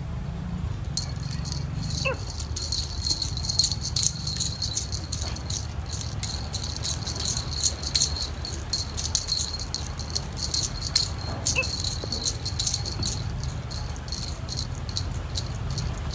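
A small rattle cat toy being shaken just above a kitten, giving rapid, irregular jingling that starts about a second in and keeps on, over a steady low rumble.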